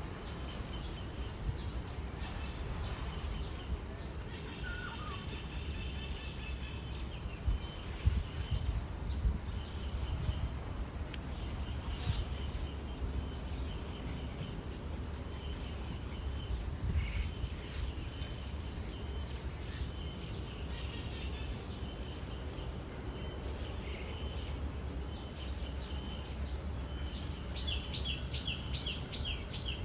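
Cicadas buzzing in a steady, high-pitched, unbroken chorus. Birds chirp over it, with a quick run of short repeated calls near the end, above a low rumble.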